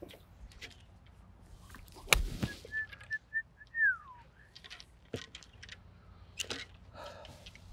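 Golf balls struck off a driving range mat by clubs: several sharp cracks, the loudest about two seconds in. Between strikes a bird whistles a run of short notes that ends in a falling slide.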